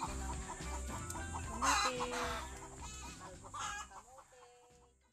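Chickens clucking, with a few louder calls, over background music with a steady beat. The music fades out near the end.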